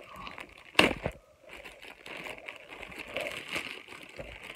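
Plastic poly mailer bag crinkling and rustling as hands work it open, with one louder, sharp rustle about a second in.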